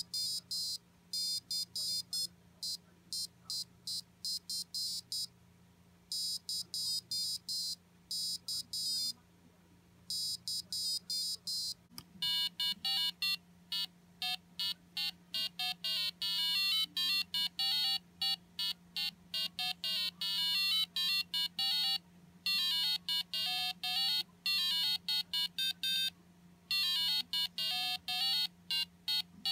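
IchigoJam computer playing an MML tune as a melody of short square-wave beeps. At first it comes from the board's piezo buzzer with only high, thin notes. About 12 seconds in, the melody plays through a small external speaker box, louder and with lower notes.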